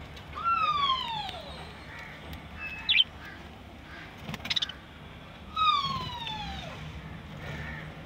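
Budgerigars calling: two long falling whistles about five seconds apart, with a short sharp chirp and a few clicks between them.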